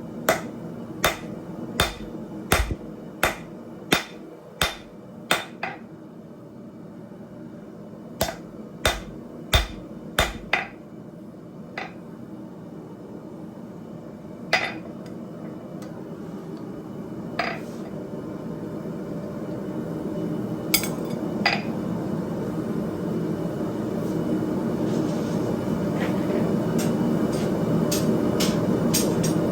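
Blacksmith's hammer striking hot steel on an anvil while forging a hot cut hardy. There are two quick runs of blows, the first about nine strikes and the second about five, then single blows every few seconds. A steady rushing noise grows louder through the second half.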